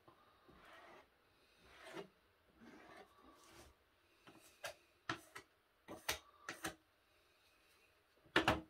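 Thin wooden boards being handled and fitted during gluing: soft rubbing and scraping, then a series of light wooden knocks and clicks, the loudest one near the end.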